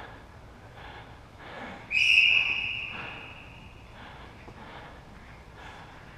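Referee's whistle blown once about two seconds in: a single loud, steady blast of about a second, then fading.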